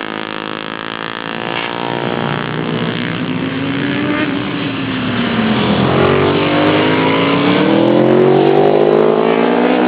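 Pit bike engines, single-cylinder YX four-strokes, revving up and down as they are ridden round the track: the pitch falls around the middle, then climbs again while the sound grows louder over the second half.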